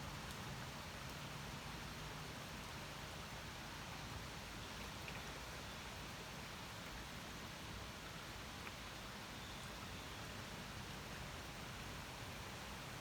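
Steady rain falling: an even hiss with a few faint ticks of single drops.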